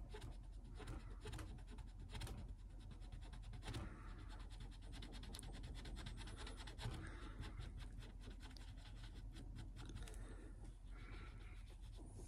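Cotton swab rubbing over a varnished wooden lid in many quick short strokes, making a faint dry scratching as the old varnish is cleaned off.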